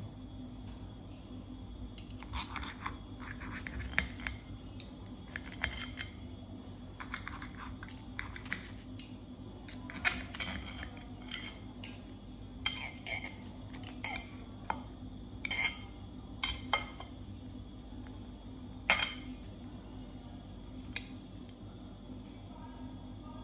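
Knife and fork cutting a thin tortilla-crust pizza on a ceramic plate: the serrated blade scrapes through the crust and clinks against the plate in irregular strokes, with the sharpest clinks about two-thirds of the way through. A steady low hum runs underneath.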